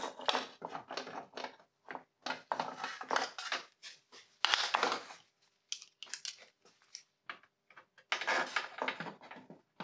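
Metal tool clatter and irregular runs of clicking from a small socket ratchet with an extension, fitted with an 8 mm socket and worked onto a deep headlight mounting screw.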